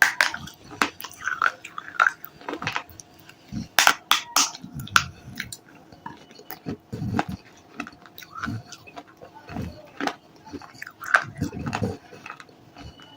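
Close-up mouth sounds of someone biting and chewing brittle baked clay (kulhad and diyas coated with khadi paste): irregular sharp crunches, several a second at times, with duller chewing between them.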